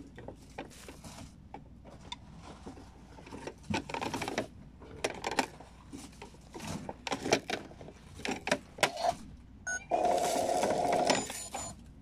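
Plastic clicks and knocks from a Kid Connection toy washing machine as its door and drum are handled and a doll's dress is pushed in and pulled out. About ten seconds in, the toy gives a steady electronic tone lasting about a second.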